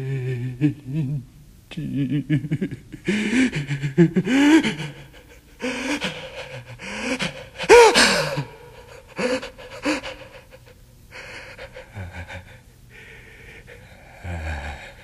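A performer's voice making wordless sounds: gasps and breathy cries that glide up and down in pitch, in short broken bursts. They grow fainter and breathier in the last few seconds.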